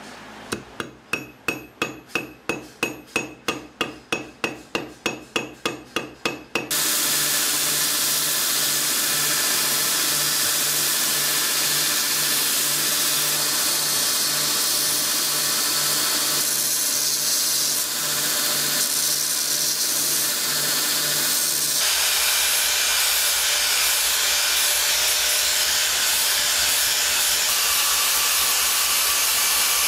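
Quick hammer taps, about three a second, with a metallic ring, for the first six seconds. Then a belt grinder runs steadily as the wooden knife handle is pressed against the belt. About 22 seconds in, an angle grinder takes over, grinding the steel blade.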